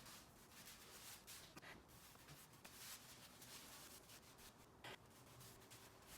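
Near silence with a few faint, short scratching or rubbing strokes.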